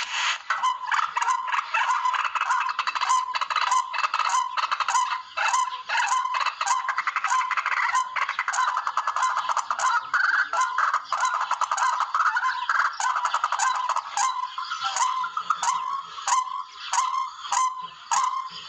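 Calls of the tikling, a Philippine rail, from a bird-hunting lure recording: dense, rapid, harsh calls overlapping without a break, with sharp ticks about twice a second.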